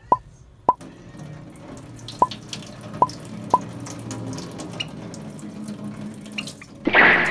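Kitchen tap running into a sink, with a few short sharp plinks over it in the first few seconds and a brief louder burst of noise near the end.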